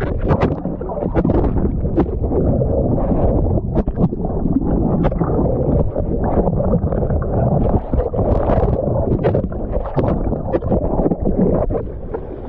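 Wind buffeting an action camera's microphone and sea water rushing and splashing against it as a kiteboard rides through choppy water, with many sharp splash hits throughout.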